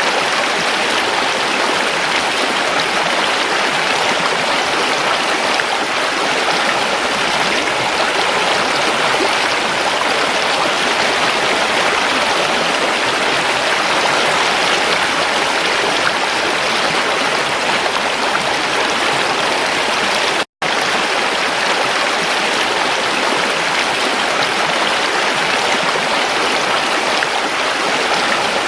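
River water rushing and splashing steadily, with one instant where the sound cuts out completely about two-thirds of the way through.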